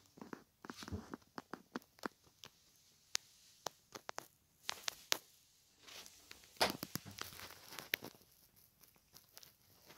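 Irregular light clicks, taps and rustles, thickest in clusters around the middle and from about six and a half to eight seconds in.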